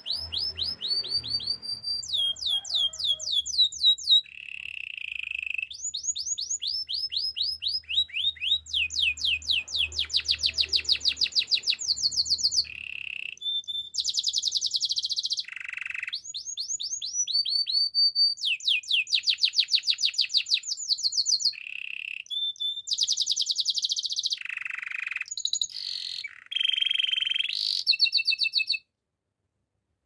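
Domestic canary singing a long song of rapid trills: each phrase is a quick run of repeated notes, and a new phrase follows every second or two. The song stops abruptly near the end.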